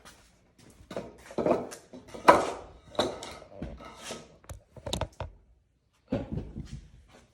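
Handling noise close to the microphone: an irregular run of knocks, clicks and rustles as gear is picked up and set in place, loudest in the middle.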